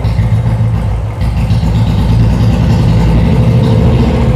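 Royal Enfield Bullet's single-cylinder four-stroke engine running just after a kick start, the revs dipping briefly about a second in and then picking back up.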